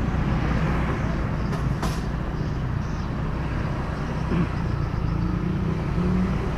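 Road vehicle engine running low and steady while creeping through a traffic jam, with surrounding traffic noise. A brief sharp click about two seconds in.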